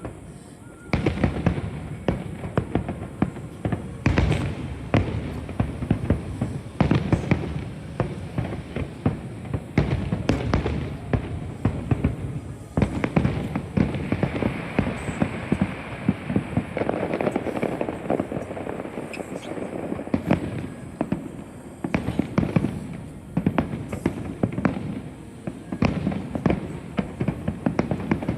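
Aerial fireworks going off in rapid succession: many sharp bangs, one after another and overlapping, over a continuous low rumble.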